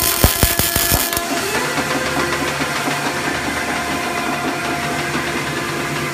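Crackling and spitting of the inline welding arc sealing the seam of a roll-formed rack beam. It stops suddenly about a second in, and the roll forming machine is left running with a steady mechanical hum and drone.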